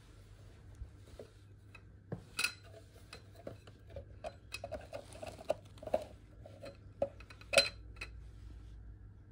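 Stainless steel mop handle tubes handled and slotted together: scattered metallic clinks and rattles, with two sharp clicks about two and a half seconds in and about seven and a half seconds in, the second the loudest.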